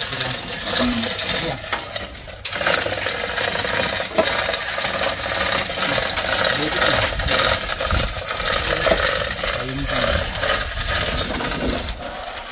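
Steel chain of a manual chain hoist clinking and rattling continuously as a heavy engine hanging from it is moved and lowered.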